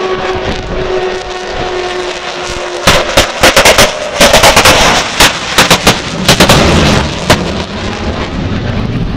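Avro Vulcan's four Rolls-Royce Olympus turbojets passing low overhead: a steady high howl for the first few seconds, then loud, dense crackling as the bomber passes directly above, easing to a steadier rush near the end.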